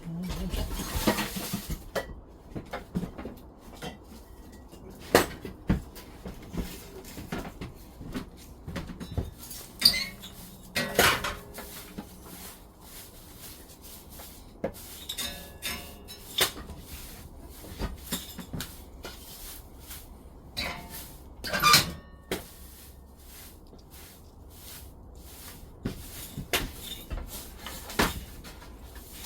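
Firewood being handled: irregular knocks and clatter of wooden sticks, with two louder knocks about eleven and twenty-two seconds in.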